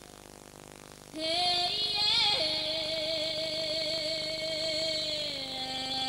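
A woman's solo voice singing wordlessly in an extended Siberian style: after a quiet first second she comes in, slides upward, and holds a long wavering note with a bright, ringing overtone band high above it, then steps down to a lower note near the end.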